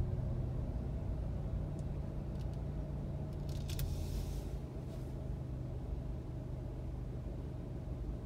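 Steady low rumble of a car heard from inside its cabin as it idles and creeps forward in stop-and-go traffic. A few light clicks come about two seconds in, then a short rattling hiss about three and a half to four and a half seconds in.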